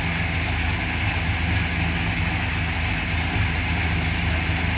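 Heavy machinery running steadily: an even, low engine drone with a hiss above it.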